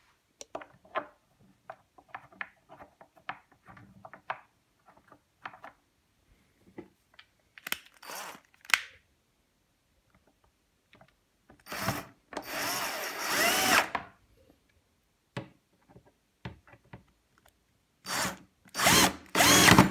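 Cordless drill running in short bursts, driving bolts down through a mitre saw's base into tapped holes; the longest burst, about two seconds, comes near the middle, with the motor's pitch sliding up and down. Before the drilling, light clicks of bolts and washers being handled.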